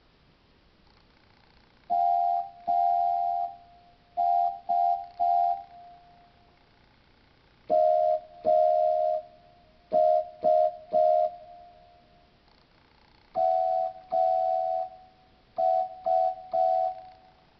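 Yamaha PSR-GX76 electronic keyboard playing a steam-engine whistle call by ear, each toot a two-note chord. The call is two longer toots then three short ones, played three times at slightly different pitches.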